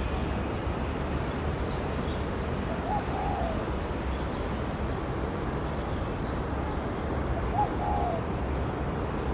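A dove cooing, a short low phrase repeated twice about five seconds apart, with faint high chirps from small birds over a steady background hiss and rumble.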